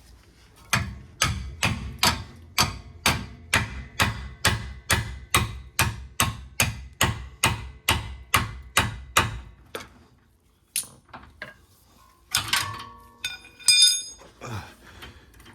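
Hammer striking metal in a steady run of about eighteen blows, roughly two a second, to knock loose tight tie-rod nuts that a wrench can't get at. Near the end comes a clatter of metal tools and a short ringing clang.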